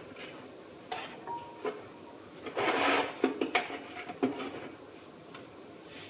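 Plastic screw cap twisted off a gallon jug of vinegar, with a short rasping crackle about halfway through, among light clicks and clinks as the jug and a metal measuring cup are handled.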